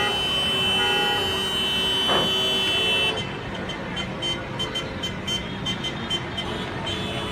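Car horns honking together in celebration, several held notes at different pitches sounding at once. About three seconds in, the held notes stop and a rapid beeping horn takes over, about four beeps a second.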